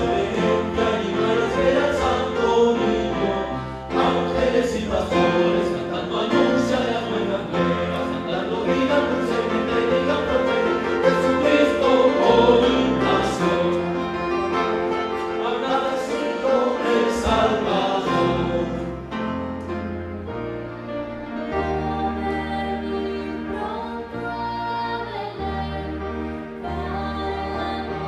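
Choir singing with instrumental accompaniment. About nineteen seconds in, the music becomes quieter and thinner.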